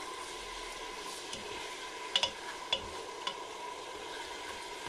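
Lamb pieces and whole spices sizzling steadily in hot oil in an aluminium pot: the meat's first fry in oil. A plastic slotted spatula stirs them and knocks sharply against the pot three times around the middle.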